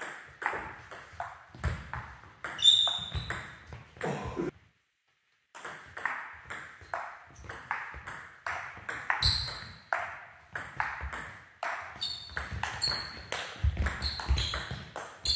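Table tennis rally: the plastic ball clicking in quick alternation off the bats, one faced with long-pimpled rubber, and bouncing on the table. The sound drops out completely for about a second, some four and a half seconds in.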